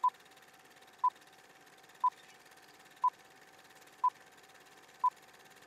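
Film-leader countdown sound effect: a short electronic beep once a second, six times, over a faint steady hiss with a thin steady tone under it.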